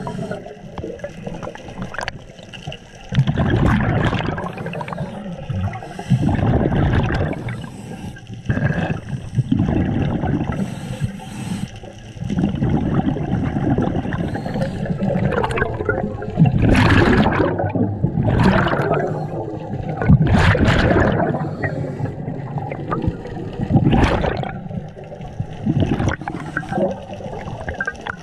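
Underwater breathing through a scuba regulator: bursts of exhaled bubbles rushing and gurgling, coming back every few seconds.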